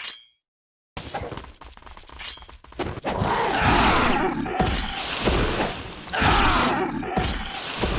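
Designed fantasy sound effect of crashing and shattering. It follows a short burst and a second of silence, then swells in two loud surges about three and six seconds in.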